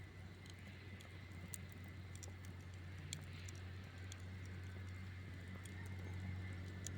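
Campfire crackling quietly: scattered sharp pops and snaps of burning wood, several a second, over a steady low hum.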